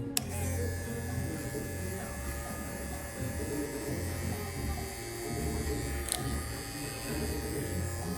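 BaByliss Pro FX cordless hair clipper switched on with a click and running with a steady electric buzz. A second click comes about six seconds in.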